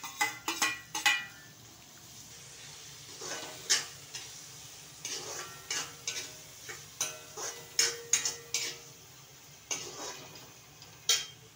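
A metal spatula scraping and clinking against a metal kadhai (wok) as chopped capsicum is stirred into tomato-onion masala. The scrapes and knocks are irregular, sometimes several a second, and a few leave a short metallic ring.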